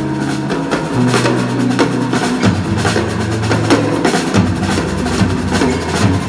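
A live band playing, driven by a drum kit with rapid, closely spaced snare and bass-drum hits over sustained low notes that step from pitch to pitch.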